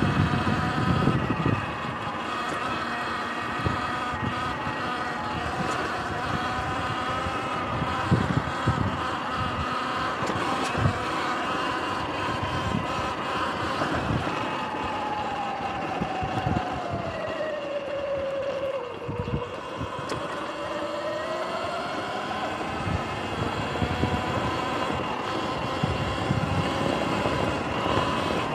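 Sur-Ron electric dirt bike's motor and drive whining while riding over grass, the whine falling in pitch about two-thirds of the way through and rising again as the bike slows and picks up speed, with irregular low thumps throughout.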